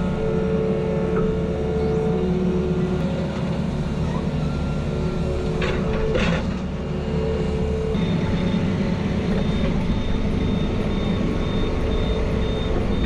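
Heavy diesel machinery running steadily, a low engine drone with a couple of brief sharp knocks about six seconds in. About eight seconds in, a faint high-pitched beep starts repeating at an even pace.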